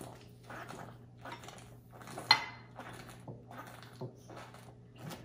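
Beer being chugged from a glass bottle: a steady run of gulps and glugs, about two a second, with one sharp clink a little over two seconds in.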